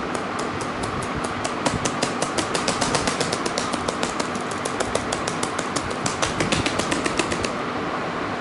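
A laptop keyboard key tapped rapidly and repeatedly, about seven sharp clicks a second, stopping about 7.5 seconds in, over a steady hiss.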